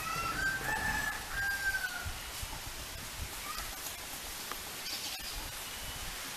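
A rooster crowing once, a single call of about two seconds that rises and then falls away, over a steady outdoor hiss.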